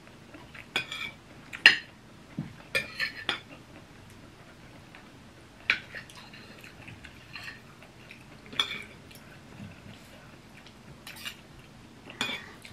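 Metal forks and spoons clinking and scraping against ceramic plates as two people eat, in scattered sharp clinks about eight times, the loudest about two seconds in.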